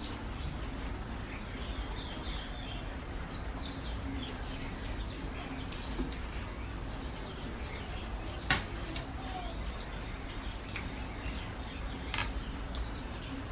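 Small birds chirping in the background, many short high chirps scattered throughout over a steady low hum, with a few sharp clicks, the loudest about eight and a half seconds in.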